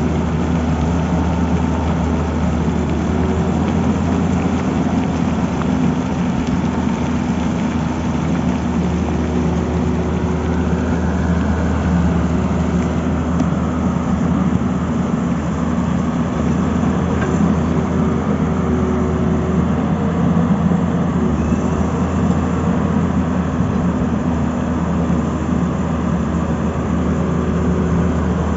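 Tata Hitachi crawler excavator's diesel engine running steadily with a low, even hum as the machine digs into the hillside.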